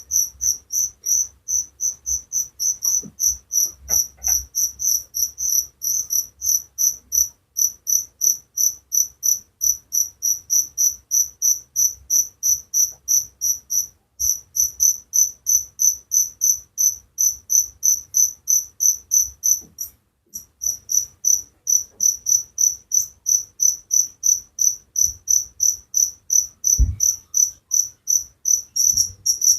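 A cricket chirping in a steady train of short, high-pitched pulses, about three a second, with a brief break about two-thirds of the way through.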